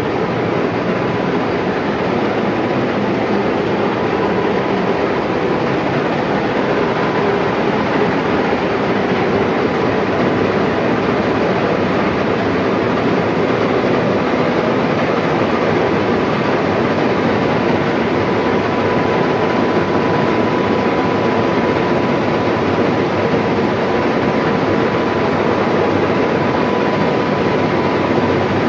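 Old-style rice mill machinery running: a loud, steady mechanical din with rattling and a thin steady whine in it.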